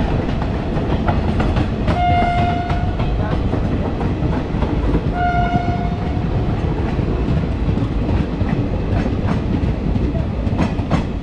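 Train running on the rails, heard close from an open coach door: a steady loud rumble of wheels with clicks from the rail joints, and two short locomotive horn blasts, the first about two seconds in and the second about five seconds in.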